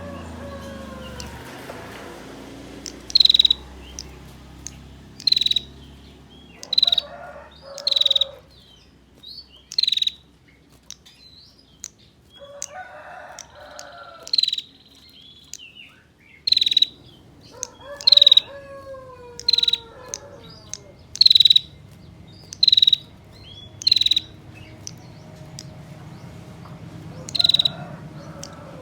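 Female prinia (prenjak) giving its 'ngetir' call: short, sharp, high notes repeated about once a second, with a pause of a few seconds in the middle, a call used to lure male prinias into answering. Fainter, lower warbling calls of other birds sound in between.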